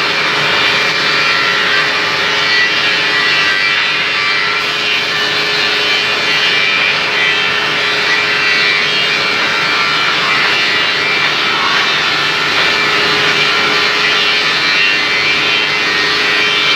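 Floor sanding machine running steadily on a wood floor: a constant motor hum under dense sanding noise, with no break.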